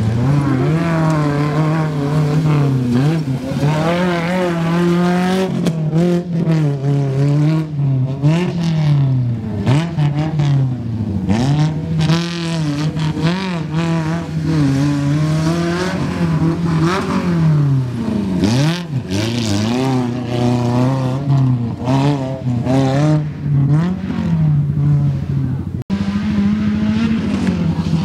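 Racing car engine revving hard on a dirt track, its pitch repeatedly climbing and dropping as the driver accelerates and lifts off for the turns. There is a brief dropout near the end.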